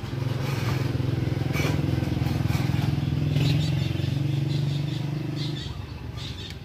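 A vehicle engine running steadily, then dropping away near the end.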